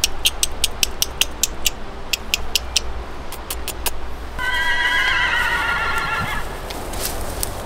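A horse whinnies once, a wavering call of about two seconds a little past the middle. Before it comes a quick run of sharp, high ticks, about four a second, for the first few seconds.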